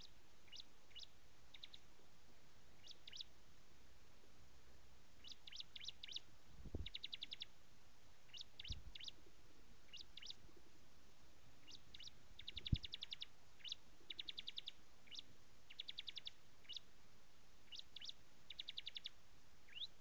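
Bar-winged prinia (ciblek) calling in short sharp chirps and rapid trills of evenly spaced notes, repeated in bouts, with a few low thumps along the way.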